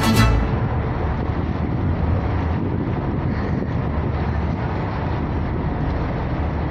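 Music cuts off just at the start, leaving a steady low rumble of wind and engine-like noise that does not change in level.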